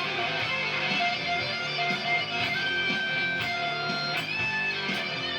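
Electric guitar played through the Noise Therapy FX Le Revenant fuzz pedal: held lead notes, one sliding up in pitch about four seconds in, over a lower rhythm part.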